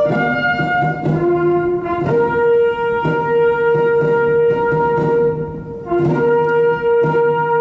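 Slow ceremonial brass music with long held notes, the main note held for several seconds and changing about six seconds in.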